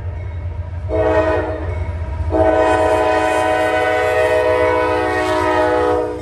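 Norfolk Southern diesel locomotive's multi-chime air horn sounding one short blast, then a long final blast that stops just before the end, over the low rumble of the engines. These are the closing short and long blasts of the grade-crossing signal as the lead locomotive reaches the crossing.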